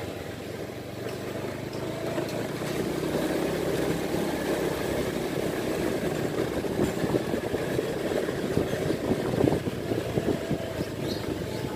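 Small motorcycle engine running at low road speed while riding, a steady hum.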